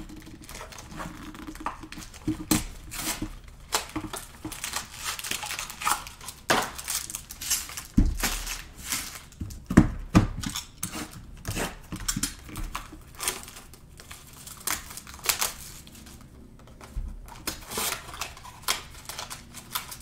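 Trading card pack wrappers crinkling and tearing, with irregular small clicks and taps of cards and packs being handled.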